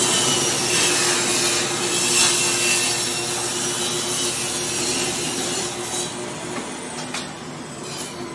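SawStop CTS compact table saw cutting a board, the blade sawing through the wood over a steady motor whine. The sound grows gradually quieter toward the end.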